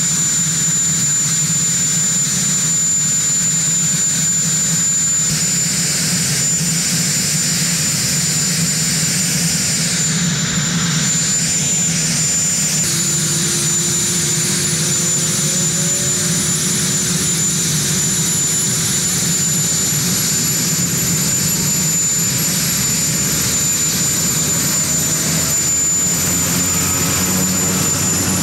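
Marine One, a Sikorsky VH-3D Sea King helicopter, running on the ground with a steady high turbine whine over a low hum. About halfway a further whine comes in and slowly climbs in pitch as the engines run up for lift-off.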